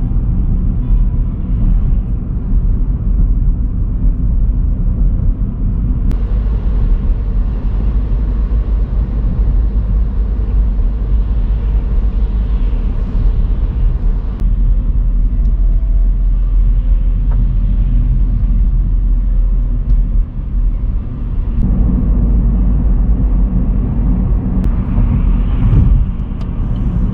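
Car driving along a road, heard from inside the cabin: a loud, steady low rumble of tyre and engine noise.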